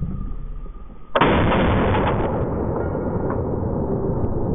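A rifle shot about a second in, sudden and loud, its rumble carrying on for a few seconds after.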